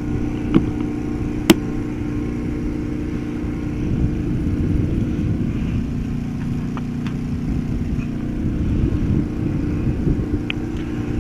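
A steady low hum, like a motor or engine running, throughout, with two sharp clicks in the first two seconds and a few faint ticks later.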